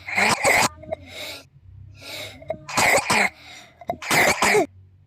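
A person coughing: three pairs of short coughs, each pair a second or more apart.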